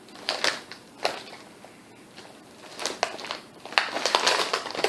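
Potato chips crunching: a couple of sharp crackles in the first second, then a dense run of crunching from about three seconds in as the chips are chewed.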